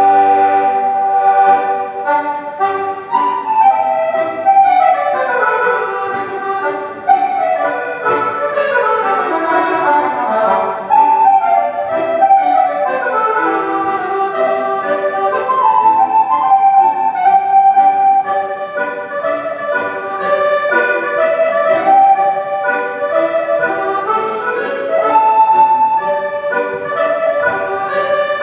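Scottish country dance music for a strathspey, its melody running in phrases that sweep down and then climb back up.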